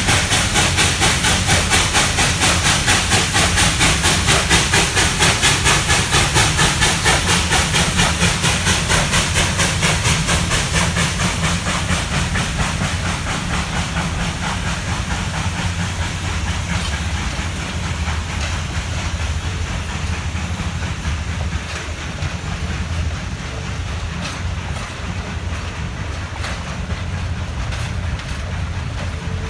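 Great Smoky Mountains Railroad #1702, a 2-8-0 steam locomotive, working past under load with a fast, even chuff of exhaust that fades over the first dozen seconds. Passenger cars then roll by with occasional rail-joint clicks, over a steady rush of river water.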